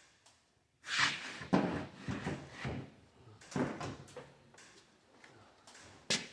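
Clothes dryer parts being handled as the door is worked off: a run of clattering knocks and scrapes lasting a few seconds, then a single sharp click near the end.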